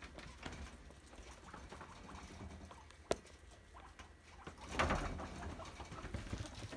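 Guinea pigs rustling and scratching about in their cage: light rustling and small clicks, with a sharp click about three seconds in and a louder rustle just before five seconds.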